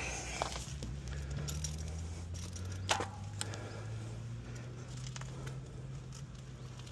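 DUOTTS C29 electric mountain bike's 750 W motor humming low and steady under pedal assistance, its pitch rising a little over the first few seconds, with scattered light clicks and rattles from the bike.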